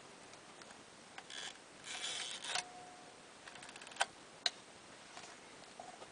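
Kiev 6C medium-format SLR being worked by hand: a rasping, ratcheting wind of its mechanism, then two sharp clacks about half a second apart as the focal-plane shutter fires.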